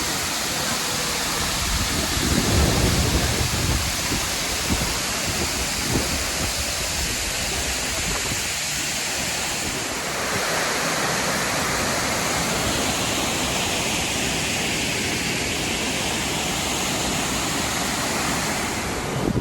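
Waterfall rushing steadily, with gusts of wind buffeting the microphone and adding a low rumble.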